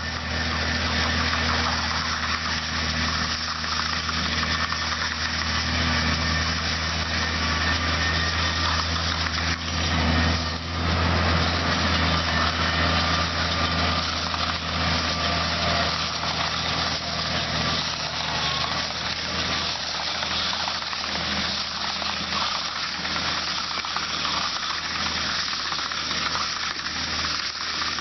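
Case IH Maxxum 140 tractor's engine running steadily, with mechanical clatter from the Welger baler it is driving. The sound swells briefly about ten seconds in.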